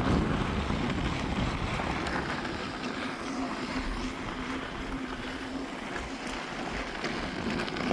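Wind rushing over the microphone with road noise while riding an electric unicycle, a low rumbling noise throughout with a faint steady hum through the middle.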